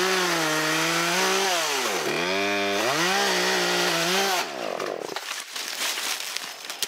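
Vintage Poulan Wood Shark two-stroke chainsaw running at high speed in a cut, its engine speed dipping and recovering about two seconds in. A little past four seconds it cuts off abruptly: a falling branch has hit the kill switch. Quieter rustling follows.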